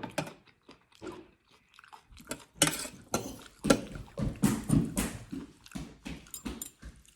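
Close-up eating sounds: a person biting and chewing food in an irregular run of short sharp sounds, busiest in the middle.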